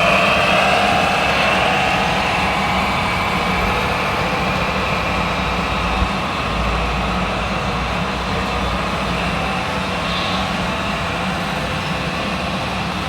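Radio-controlled model construction machines running with a steady engine-like hum. A higher motor whine fades out over the first two seconds, and there is a single knock about six seconds in.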